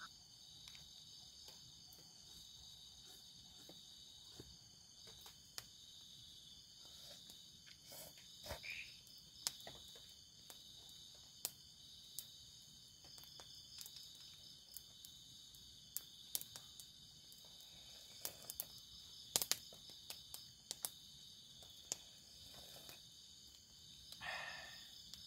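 A steady chorus of night insects chirring at a high pitch, with scattered sharp clicks and taps over it.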